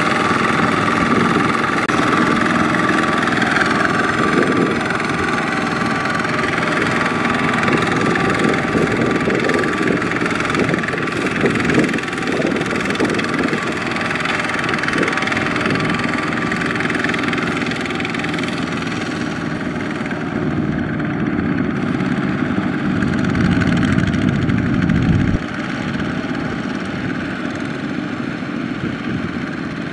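Single-cylinder Kubota ZT140 diesel engines of two-wheel walking tractors running steadily under load, pulling trailers of rice sacks through sticky mud. The sound shifts abruptly twice.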